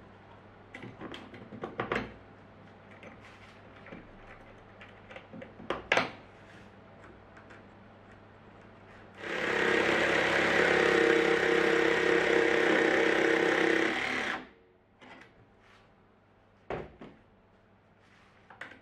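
Cordless jigsaw running steadily for about five seconds as it cuts a wooden workpiece held in a sliding jig, starting about nine seconds in and stopping abruptly. Before it, light clicks and knocks of wooden parts being positioned and clamped, and another knock a few seconds after it.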